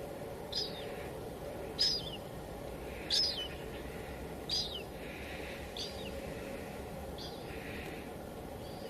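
Steady hiss of light drizzle falling on a window. Over it a bird calls about seven times, each call a short downward chirp, spaced a little over a second apart.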